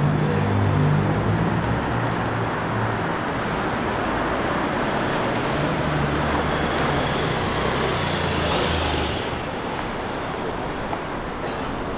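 City street traffic: a steady wash of engine and tyre noise, with a vehicle engine's low hum strongest in the first few seconds and again around six to nine seconds in.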